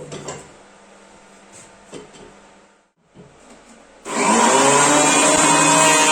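A few light knocks, then about four seconds in an electric power tool's motor starts, comes up to speed and runs steadily at full speed.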